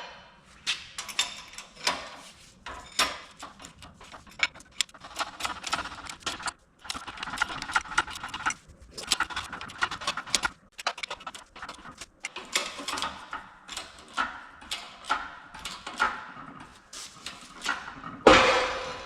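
Shop press forcing a Unimog 416 CV joint's cross pin into its yoke: a long run of irregular metallic clicks and ticks, with a squealing tone in stretches through the middle, and a louder rushing burst near the end.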